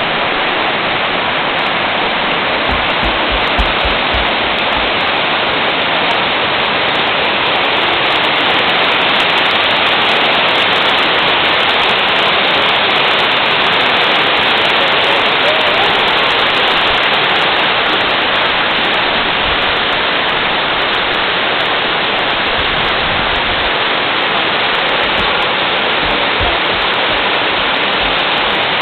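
Small whitewater rapids on a creek, water rushing steadily over and around rocks. The sound is loud and even, with no breaks.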